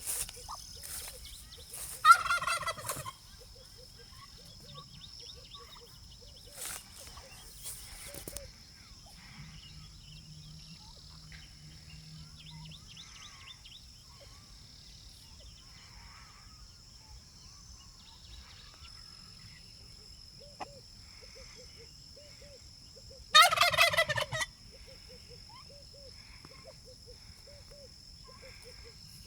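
Turkey gobbling twice, a rapid warbling call of about a second each, once about two seconds in and again near the end. A steady high trill of insects runs underneath.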